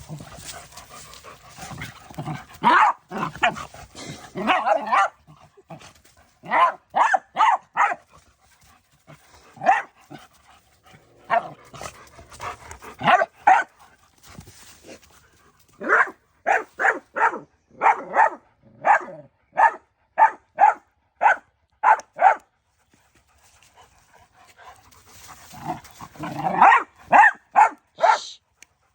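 A dog barking in short, repeated barks, some in quick runs of three or four and others about a second apart, with pauses between.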